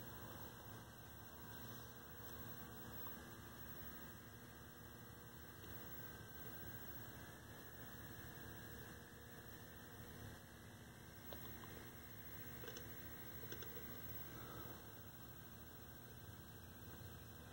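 Faint steady mains hum, close to silence, with a few soft ticks.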